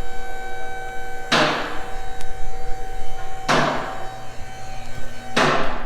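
Background music: a chord hit about every two seconds, each one held and ringing until the next.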